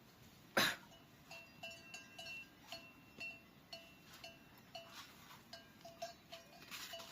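Bells on grazing livestock clinking irregularly, about two strikes a second, each a short ringing tone. A single sharp knock about half a second in is the loudest sound.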